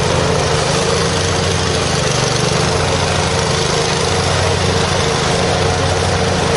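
Exmark Lazer Z zero-turn mower's Kohler Command 25 hp V-twin engine running steadily at a constant speed.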